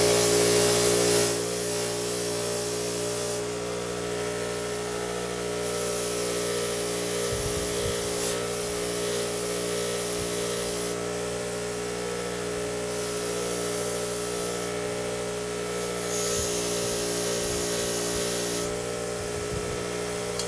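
Motor-driven wire wheel running steadily, with a rasping hiss that comes and goes in stretches as the soldered end of a choke cable is held against the wire brush. The hiss is loudest in the first second.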